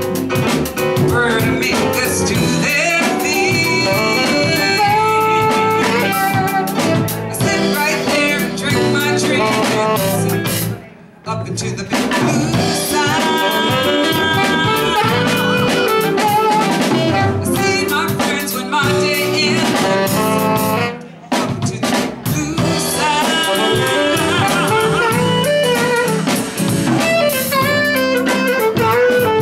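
A band playing a blues-jazz song with drum kit and other instruments, with two brief breaks about eleven and twenty-one seconds in.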